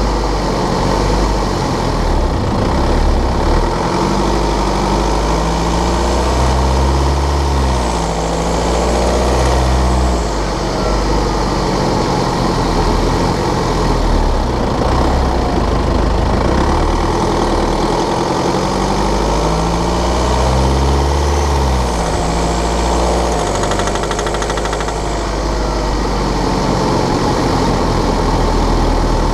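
BMW N47 two-litre four-cylinder diesel running with a rattling, ticking noise, its revs rising and falling twice. The rattle comes when the engine is cold and under load around 1500 rpm, a fault the owner traces to one of the fuel injectors.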